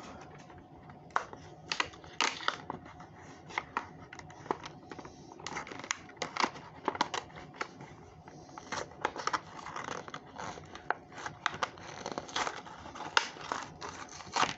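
Hands opening the packaging of a toy car: irregular clicks, scrapes and crinkles of plastic and cardboard as the model is worked free.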